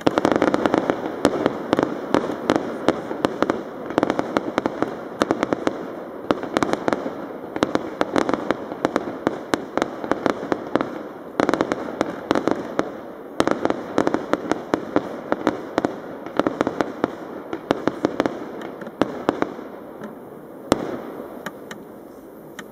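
Fireworks display: a rapid, dense barrage of bangs and crackles that thins out near the end, with one last sharp bang before it fades.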